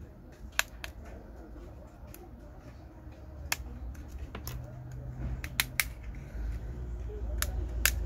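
Sharp small clicks and taps, about ten of them at irregular intervals, as a smartphone is handled against a marble tabletop during disassembly. A low steady hum runs underneath.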